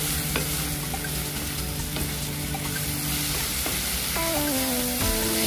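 Chicken strips with onion and shrimp paste sizzling in oil in a nonstick frying pan while a spatula stirs them, with a few light taps of the spatula on the pan. The chicken is being sautéed until it changes colour.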